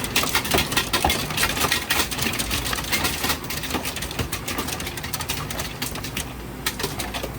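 Commercial ice machine's compressors running with a steady low hum, under a rapid crackle and clatter of ice that is dense for the first few seconds and then thins out: the hot-gas harvest releasing the ice from the evaporator mold.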